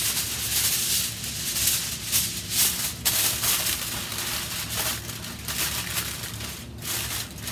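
Aluminium foil crinkling and crackling as it is folded and wrapped around a cooked rotisserie chicken.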